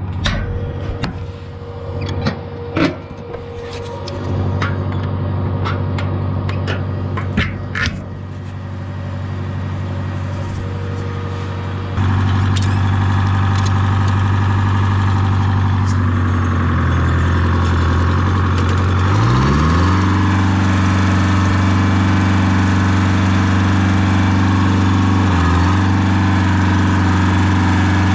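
Farm machinery engine running, with several sharp knocks over the first few seconds. About twelve seconds in it gets suddenly louder, and a few seconds later the engine speed rises and then holds steady at the higher speed.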